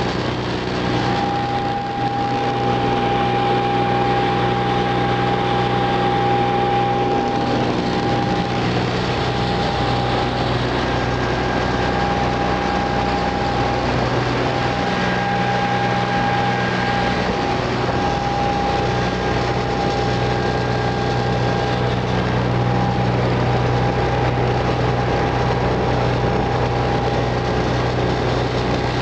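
An engine running steadily at a fairly even speed.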